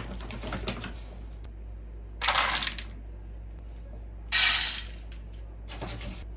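Dry dog kibble poured into food bowls in two short clattering pours, about two seconds apart, with a few more pieces rattling in near the end.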